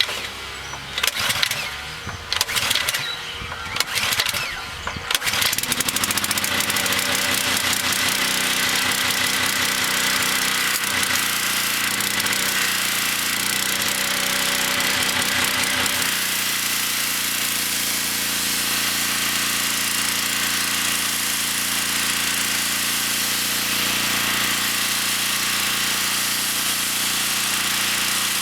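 Ridgid RD80702 pressure washer's fuel-injected Robin engine being started: several short starting attempts, then it catches about five seconds in and keeps running steadily, its sound changing partway through.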